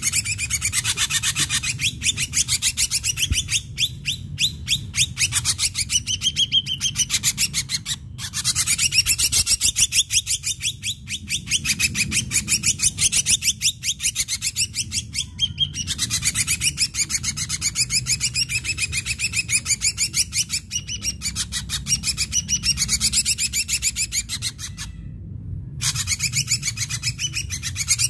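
Ashy drongo singing in full, continuous song: a fast chattering run of very rapidly repeated sharp notes, broken only by a few brief pauses.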